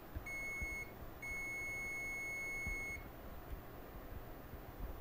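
Digital multimeter's continuity beeper sounding as the probes bridge a shorted capacitor on a laptop motherboard: a short high beep, then a longer steady one of almost two seconds, signalling a short circuit on that rail.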